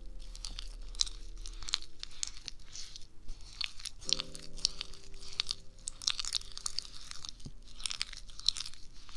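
Sticky, wet clicking of a thick paste being stirred and scooped with a wooden spoon in a small bowl, close to the microphone, in a dense irregular patter. A held musical chord sounds about four seconds in for a couple of seconds.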